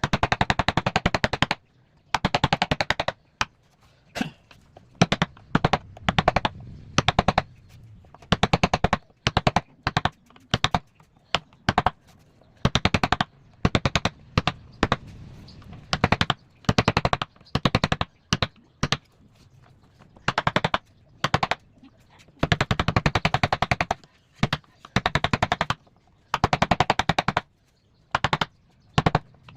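Rapid tapping of a carving tool on wood, in short bursts of a second or two with brief pauses between them.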